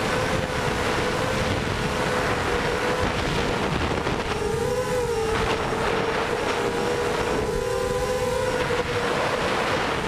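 Lumenier QAV250 racing quadcopter's Cobra 2204 brushless motors and 5x4.5 props whining steadily in fast flight, heard through its onboard GoPro with heavy wind rush on the microphone. The pitch wavers twice as the motors speed up and slow down.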